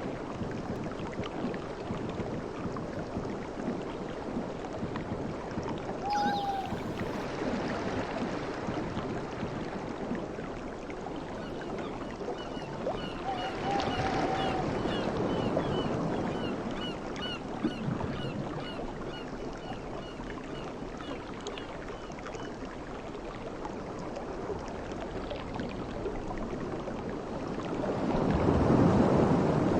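Sea waves washing in, a steady rush of surf, with one wave surging louder near the end. A faint run of short high chirps repeats in the middle.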